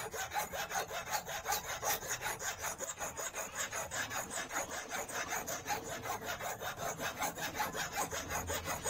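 A flat hand file is being stroked quickly back and forth over a thin steel wire cut from a front brake cable and clamped in a jig, filing the barb of an eel fishing hook. It makes a steady, rhythmic rasping, about four to five strokes a second.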